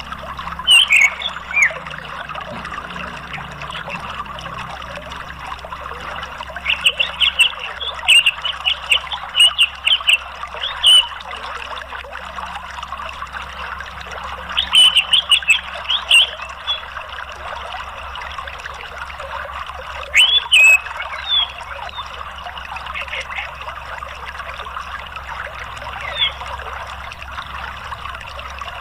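Steady running water of a stream or waterfall, with several bursts of short, high chirping calls: near the start, a long run in the first half, and again a few more times later.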